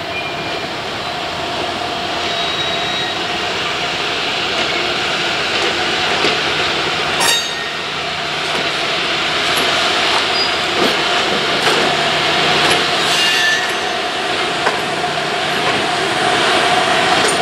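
Passenger train of stainless-steel cars rolling slowly toward and past, steel wheels running on the rails with sharp clicks now and then, growing louder as it nears.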